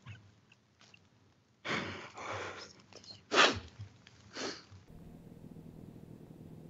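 A person breathing heavily and sniffing, three noisy breaths about a second apart, typical of someone holding back tears. Near the end a steady low room hum takes over.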